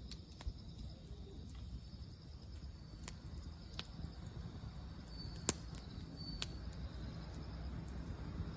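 Wood campfire crackling: a handful of sharp, scattered pops, the loudest about five and a half seconds in, over a low steady rumble.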